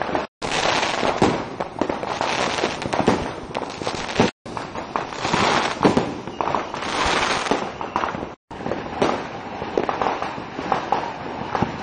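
Fireworks going off: a ground fountain spraying sparks with a steady hissing crackle, thick with sharp firecracker pops. The sound cuts out to silence briefly three times.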